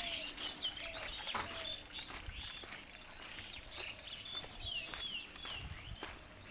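Several small birds chirping and calling at once, many quick high notes and short gliding calls overlapping.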